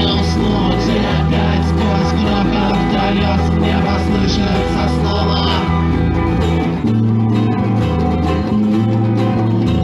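Live guitar with a bass line holding long low notes, playing an instrumental passage of a rock song.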